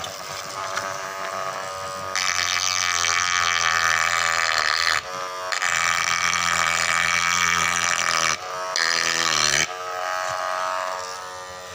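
Small electric motor salvaged from a hair clipper, driving a burr bit as a homemade engraving drill. It whines steadily, and the bit grinds into a wooden board in three spells with short breaks between them, then the motor runs on lighter near the end.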